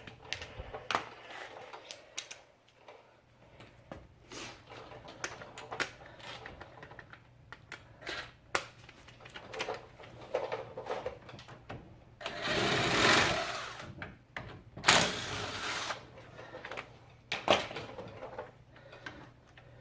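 Cordless impact wrench running on the 13 mm hub bolts in two bursts, about two-thirds of the way through, with a short third burst after. Scattered clicks and knocks of tools and bolts between them.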